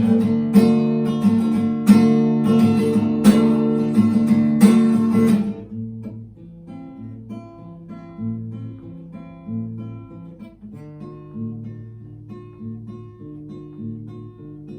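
Acoustic guitar instrumental: loud, rhythmic strumming for about five seconds, then dropping to softer, separate plucked notes.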